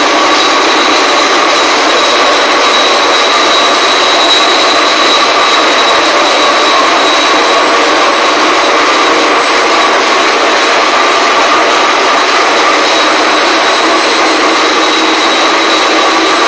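Gravure coating machine running: a loud, steady machinery noise, a broad hiss with a constant high whine in it.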